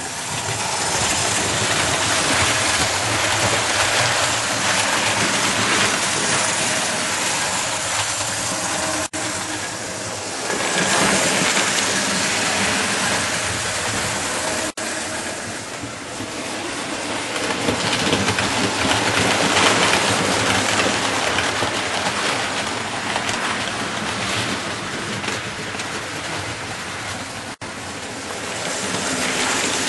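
00-gauge model trains running on the layout's track: a steady rolling rumble and rattle of wheels on rail, with three brief drop-outs.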